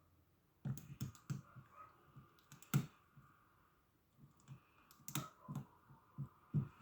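Irregular small metallic clicks and taps of a lock pick and tension wrench working the pin stack inside a padlock core, with one louder click near the middle and a quick run of clicks near the end.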